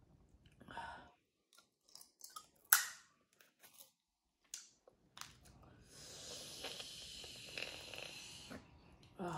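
Boiled crawfish being peeled by hand, with a few sharp cracks and clicks of shell breaking. About six seconds in comes a long sucking slurp of a couple of seconds as the crawfish is eaten from the mouth, then a short hum.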